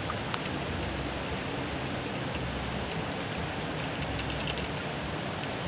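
Steady rush of flowing river water, with a few faint clicks about four seconds in.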